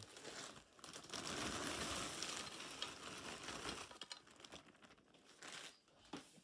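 Plastic bag of Southern-style hash browns crinkling as the potatoes are poured out into a baking dish. There is a dense rustling pour for about three seconds, which fades out after about four seconds.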